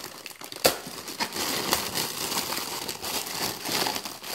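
Clear plastic wrapping crinkling as hands pull it open around a VR headset, with one sharp snap under a second in.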